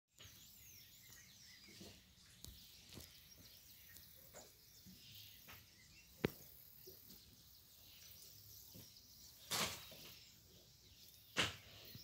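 Faint backyard ambience with a few distant bird chirps in the first couple of seconds, a sharp click about six seconds in, and two short bursts of noise near the end.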